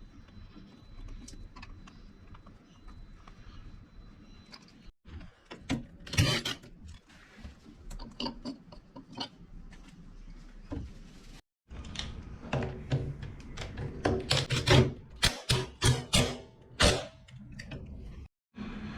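Hand tools and metal engine parts clicking, knocking and clunking as a two-stroke motorcycle engine is taken apart, in short clips with abrupt silent cuts between them.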